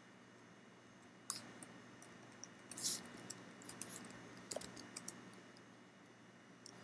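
Faint typing on a computer keyboard: a run of quick, irregular key clicks starting about a second in and stopping about five seconds in.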